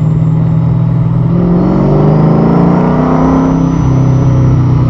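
1969 Pontiac GTO's V8 engine running at speed, heard from the cabin with the windows down, pulling up in pitch as it accelerates for about two seconds, then dropping back and running steadily near the end.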